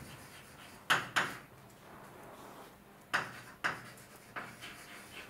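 Sharp taps and knocks of writing on a lecture board, about six of them in two or three small clusters with quiet room tone between.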